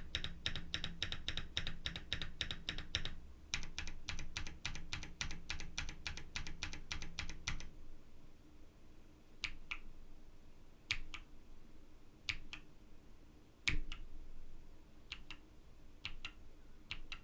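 Mechanical keyboard fitted with stock, factory-lubed KNC Green Jacket tactile switches on a POM plate being typed on. For about the first eight seconds the typing is fast and continuous, then it turns into slow single keystrokes, each a pair of clacks as the key goes down and comes back up.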